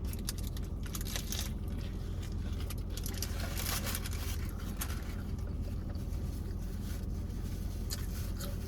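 Close-up chewing and eating sounds: crisp clicks and crunches, with occasional soft rustles of food packaging. A steady low car-cabin hum runs underneath.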